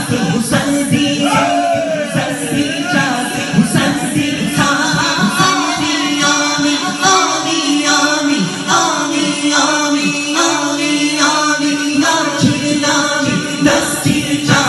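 Man singing a Punjabi devotional naat into a handheld microphone, amplified, over a steady hum.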